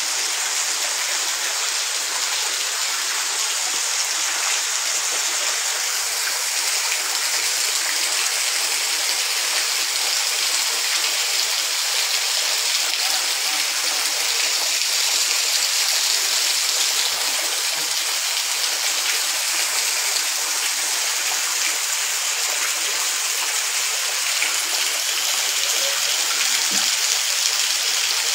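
Heavy monsoon rain pouring down steadily, a dense even hiss of rain hitting the ground and roofs.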